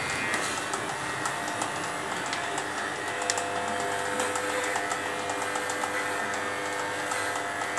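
Corded electric pet clippers running with a steady buzz while shaving a dog's thick, matted coat, with many small ticks and crackles as the blade goes through the fur.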